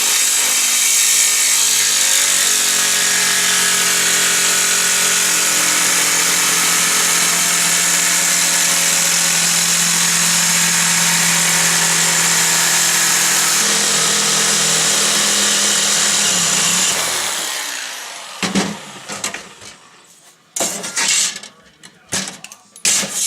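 Handheld power grinder working sheet metal: the motor spins up and holds a steady high whine with a harsh hiss from the wheel on steel. About 17 seconds in it runs down, followed by a few short metallic knocks and clatters.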